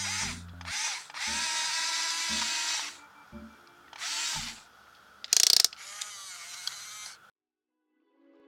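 Small electric gear motors of a toy RC excavator whining in start-stop bursts as the boom and bucket move. A short sharp clatter about five and a half seconds in is the loudest sound, and the motor whine stops shortly after.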